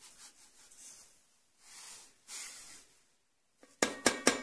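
Granulated sugar pouring from a carton onto chopped pumpkin in a steel pot: a soft, uneven hiss of falling grains. Near the end comes a quick run of sharp metallic clanks, louder than the pouring.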